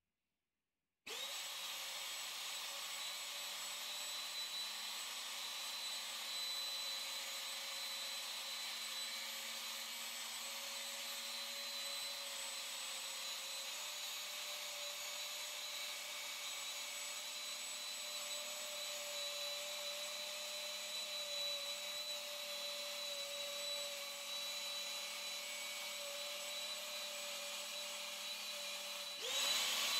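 Power tool motor running steadily at constant speed. It starts abruptly about a second in and grows louder near the end.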